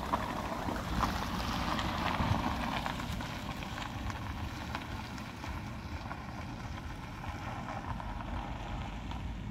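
A 2013 Ford Escape pulling away and driving off, its engine and tyre noise louder in the first few seconds and then fading, with some wind noise on the microphone.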